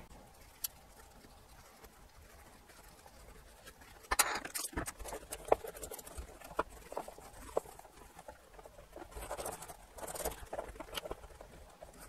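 Paper towel rubbing and rustling over the plastic front panel and push-buttons of a Sony ICF-2010 radio in irregular wiping strokes, with light clicks. It starts about four seconds in.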